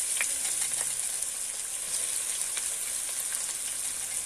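Sliced onions sizzling in hot oil in a karahi, just after being added: a steady hiss with a few faint pops.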